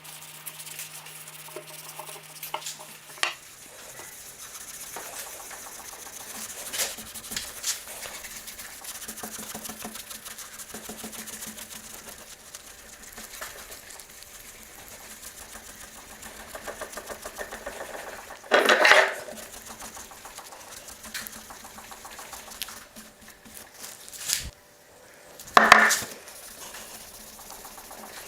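Hand-tool work on an axe: small clinks and scraping throughout, with two louder knocks, one about 19 seconds in and one about 26 seconds in.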